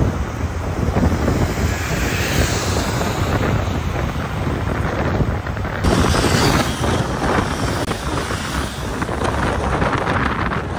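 Wind rushing over the microphone with the low rumble of a moving van's road noise. The sound shifts abruptly about six seconds in.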